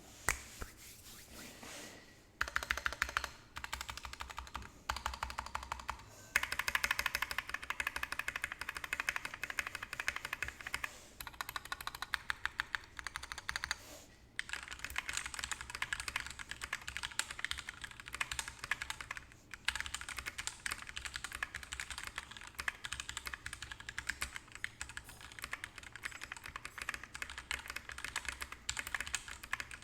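Mechanical keyboard with Gateron Ink Yellow linear switches lubed with Krytox 205g0, typed on quickly in dense runs of keystrokes, with a few short pauses.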